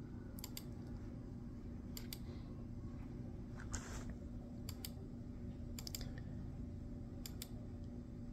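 Computer mouse clicked in quick pairs, about five times, over a low steady hum, with a brief rustle about four seconds in.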